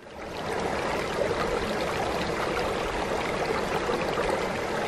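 Small, shallow stream running and trickling over rocks: a steady rush of water that fades in over the first half second.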